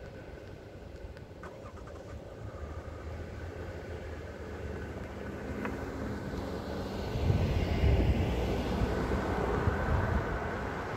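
A GMC SUV crosses the railroad tracks and passes close by. Its engine and tyre noise builds to a peak about seven to eight seconds in, then fades.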